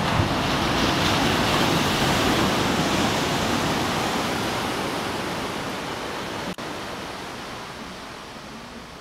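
Ocean surf breaking and washing up a sandy beach: a steady rushing hiss that swells in the first couple of seconds, then slowly fades.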